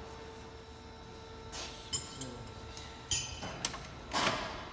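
Hand tools being handled during work under a car: a few short metallic knocks and scrapes, the longest near the end, over a faint steady hum.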